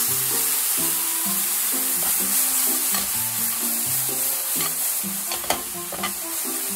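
Soy sauce and mirin sizzling as they are poured into a hot frying pan of pan-fried tofu, the burner already off so the pan's residual heat does the work. A steady hiss that eases a little towards the end, with a couple of sharp clicks near the end.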